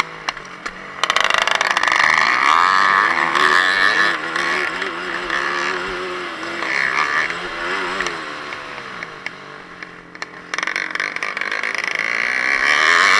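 Yamaha WR250F four-stroke single-cylinder enduro motorcycle engine, heard up close while riding hard on a dirt track. Its pitch rises and falls again and again as the rider accelerates, shifts and backs off. It gets louder about a second in and drops briefly about ten seconds in before picking up again.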